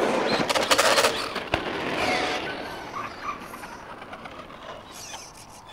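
Brushless RC monster trucks driving on tarmac: tyre noise and electric motor whine with a few sharp knocks, loudest in the first two seconds, then fading away.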